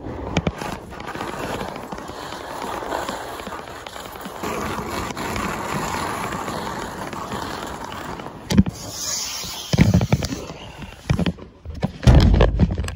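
Mattress being carried with its quilted cover rubbing and scraping against the body-worn microphone, a steady crackling rustle with scattered clicks. Several knocks come late on, then heavy low bumping near the end as the mattress reaches the truck bed.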